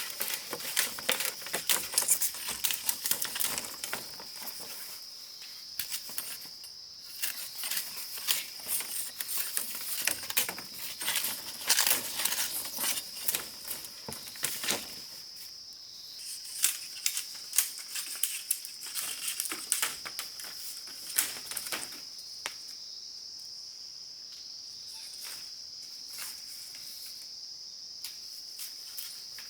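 Steady high-pitched buzz of insects, with many irregular sharp clicks and taps over it, busiest in the first half.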